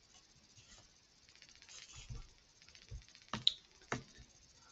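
Faint typing on a computer keyboard, then two sharper clicks a little over half a second apart about three and a half seconds in.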